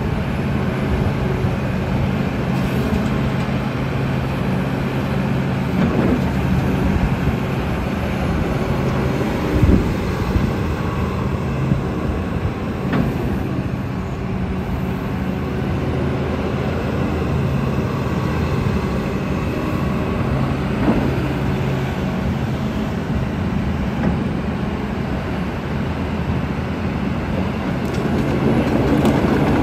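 Hitachi ZX350LC-6 excavator's Isuzu diesel engine running steadily while the boom and bucket are worked hydraulically, with a few short knocks along the way. The engine grows louder near the end.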